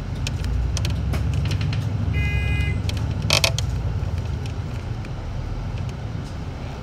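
City bus on the move, heard from inside: a steady low engine and road rumble with light rattles, a short electronic beep about two seconds in, and a brief sharp hiss or clack about a second later.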